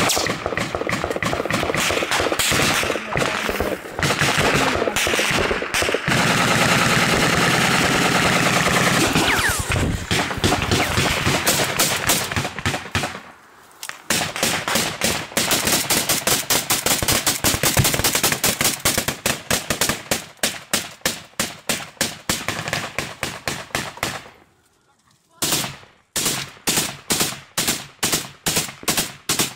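Automatic gunfire in long, rapid bursts, breaking off briefly twice, then coming as separate shots a few a second near the end.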